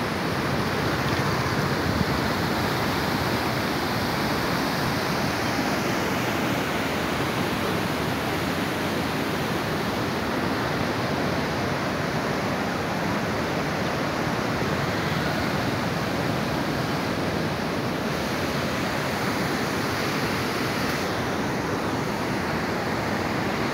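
Canal water rushing and churning white as it pours over a fall, a steady even rush with no breaks.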